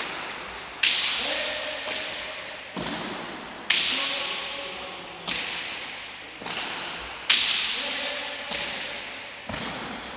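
Pelota mano rally: a hard pelota struck by the players' hands and cracking off the front wall and floor, about eight sharp impacts, each one ringing on in the echo of the empty frontón. Short squeaks come between some of the impacts.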